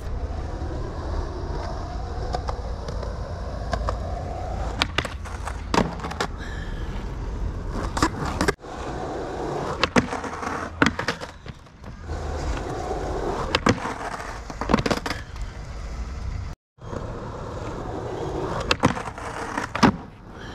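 Skateboard wheels rolling over a smooth court surface, broken by sharp tail pops, the metal trucks scraping along a concrete ledge in a crooked grind, and the board slapping down on landing. There are several takes, and the sound cuts out briefly twice between them.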